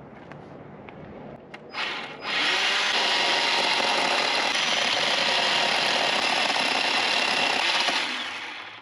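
Battery-powered tire-grooving tool cutting a groove into a truck tyre's tread. After a short blip it spins up with a rising whine, runs steadily for about six seconds, then winds down and fades.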